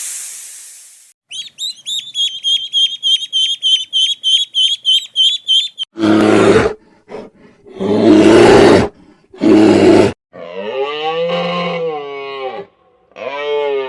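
A run of different animal sounds: a short hiss, then a bird's rapid high chirps at about four a second for some four seconds, then three loud roars about a second and a half apart, then a long call whose pitch rises and falls and a shorter call near the end.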